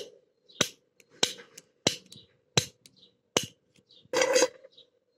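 Snap gun fired repeatedly into an old pin-tumbler padlock: six sharp snaps about two-thirds of a second apart, then a short clattering rattle about four seconds in.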